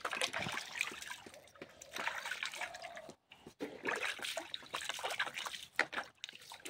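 Water splashing and trickling as a hand scoops and splashes water from a bowl, in irregular bursts with a brief break about three seconds in.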